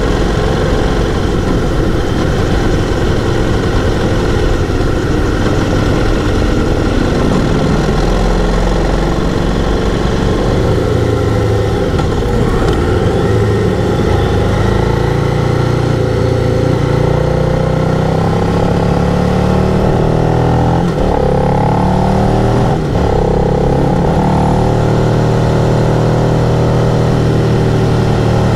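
Twin-cylinder adventure motorcycle engine running while being ridden, then accelerating with rising revs that drop back at a couple of gear shifts about two-thirds of the way in.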